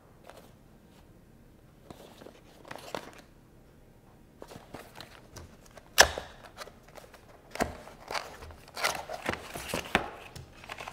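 Small cardboard box being handled and opened by hand: scattered taps and papery rustles, with one sharp snap about six seconds in, then a busier run of cardboard scraping and tapping near the end as the box is opened.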